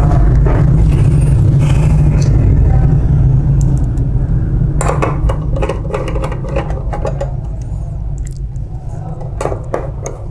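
A loud low rumble starts suddenly and eases off after about four seconds. Over it come scattered clicks and clinks of a screwdriver and metal parts as a copier drum unit is put back together.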